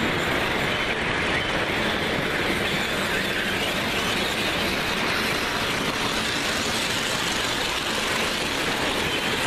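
O scale model trains rolling along the layout's track: a steady, even rumble of wheels on the rails.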